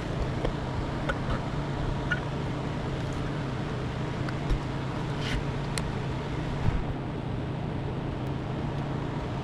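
Steady low mechanical hum, with a few faint clicks of tools handled on metal parts a little past the middle.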